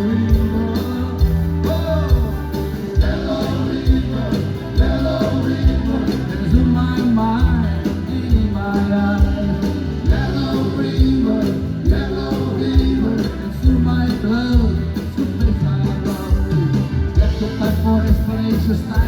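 Live band music: a drum kit keeping a steady beat under a repeating bass line, with a sliding melodic lead line on top.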